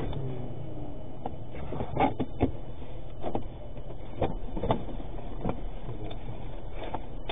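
Steady low rumble inside a cash-in-transit vehicle's cab, with scattered knocks and clicks as the crew handle a rifle and their gear.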